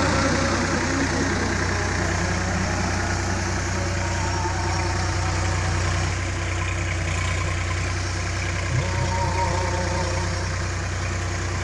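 Massey Ferguson 7250 tractor's diesel engine running steadily under load as it pulls a two-furrow reversible plough through dry soil.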